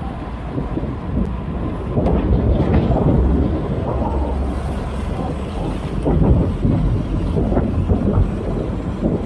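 Wind buffeting a bicycle-mounted camera's microphone while riding, a loud irregular low rumble that swells and dips, with road noise under it.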